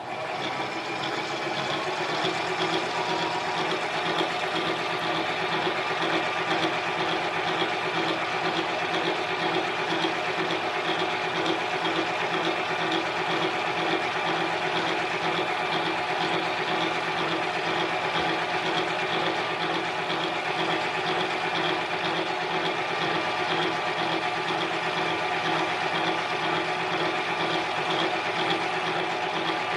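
Harbor Freight mini lathe running steadily, its motor and gear train whining at an even pitch, while a .501 reamer is fed through a bored hole in an aluminium bushing.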